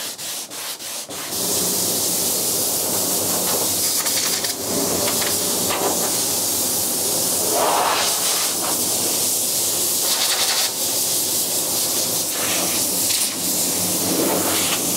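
A sanding block rubbing over the bonnet for about a second, then a compressed-air blow gun hissing steadily as it blows the sanding dust off the bonnet.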